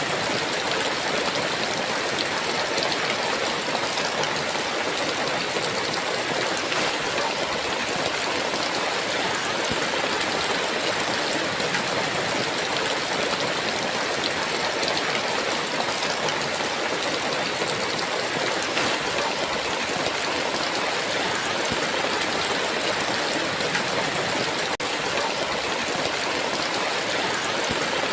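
Heavy rain falling steadily, a dense even hiss of countless drops without thunder.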